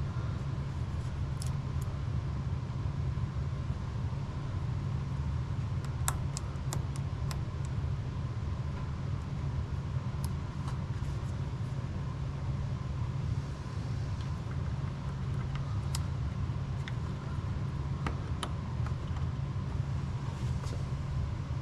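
A steady low rumble with a faint steady whine, overlaid by scattered small sharp clicks of hand tools as wires are cut, stripped and spliced.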